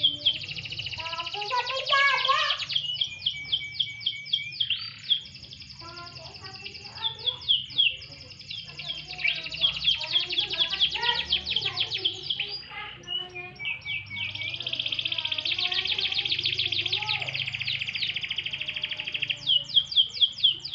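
Domestic canary singing: long, fast trills and strings of quick repeated notes, high-pitched, with short breaks about five and thirteen seconds in.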